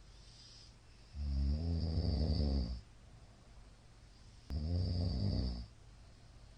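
A man snoring in his sleep: two loud, pitched snores, each lasting about a second and a half, about three seconds apart.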